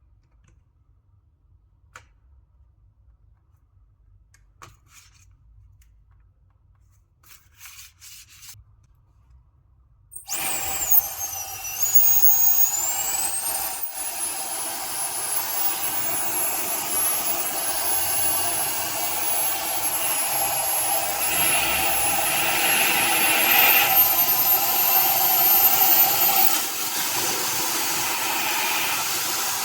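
A small high-speed electric motor moving air switches on about ten seconds in: a loud steady rush with a high whine that dips, rises, and steps higher again near the end. Before it there are only a few faint clicks.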